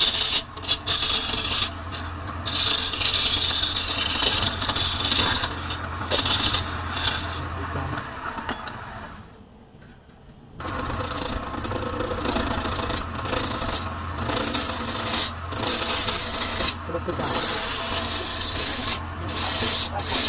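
Wood lathe turning a log while a hand-held chisel cuts into it: a rough, hissing scrape over the motor's steady low hum, swelling and easing as the tool is worked. About nine seconds in, the sound drops away for a second or so, then the cutting resumes.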